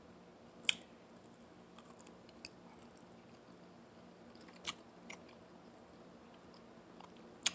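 Broccoli being bitten and chewed close to the microphone: three sharp crunches, about a second in, near five seconds and just before the end, with faint chewing crackles between.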